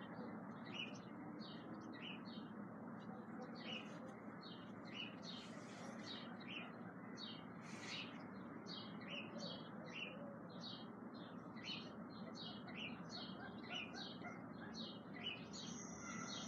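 Small birds chirping: a run of short, high chirps, two or three a second, over a faint steady hiss.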